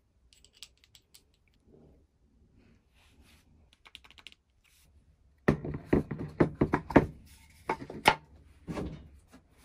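Light metal clicks as a plane cutter is clamped into a honing guide. About halfway through comes a quick run of loud knocks and clunks of steel tools and a sharpening stone in its holder handled on a wooden bench top, with a couple more knocks near the end.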